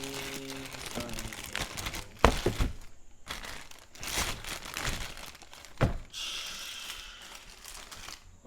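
Plastic packaging crinkling and rustling as an Acer laptop charger is unwrapped and handled, with two sharp knocks.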